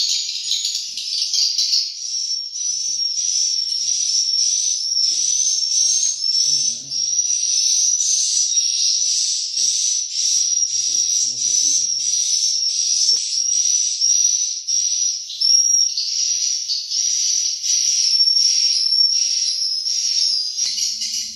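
Swiftlet calls: dense, high-pitched chirping and twittering in short repeated trills, about three a second, that fill the swiftlet house without a break.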